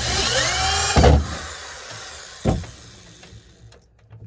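Scraping with a rising squeal for about a second, ending in a hard knock, then another knock and a few light taps. This is the whelping box's door and latch being worked on.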